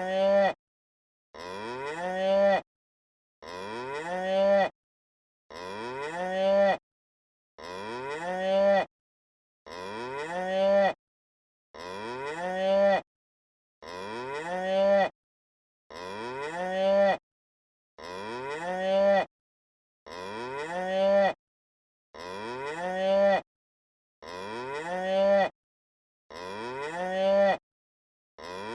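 Cow mooing: the same short moo, rising in pitch and getting louder before it cuts off sharply, repeated identically about every two seconds with dead silence in between.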